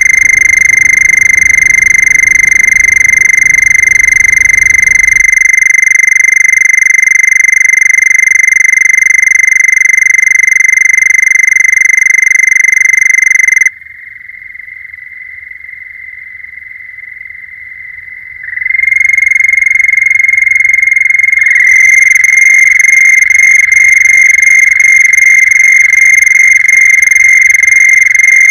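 A loud, sustained frog trill held at one steady high pitch, used as a noise-music track, with a low rumble under it for the first five seconds. About halfway through it drops much quieter for around five seconds, then swells back to full loudness.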